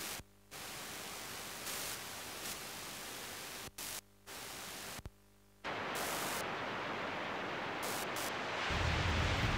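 Static hiss that drops out to silence several times in the first half. It then returns louder and duller, with a low rumble building near the end.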